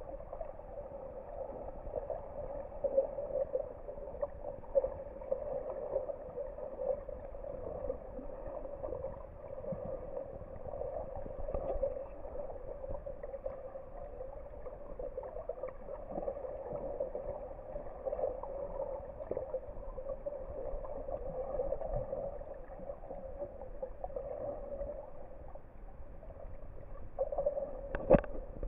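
Muffled underwater noise picked up by a submerged camera: a steady murky hiss with scattered small crackles and knocks, and one sharp knock near the end.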